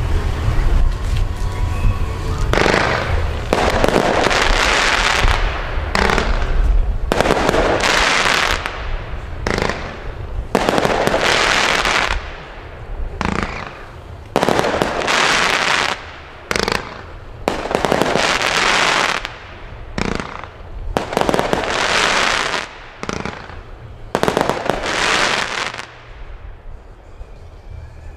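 Firework battery firing shot after shot of crackling stars. There are about a dozen dense crackles, each a second or two long, coming in an uneven rhythm of longer and shorter bursts. They stop shortly before the end.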